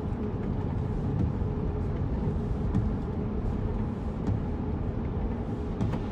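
Road and engine noise inside a moving car's cabin: a steady low rumble with a few faint ticks.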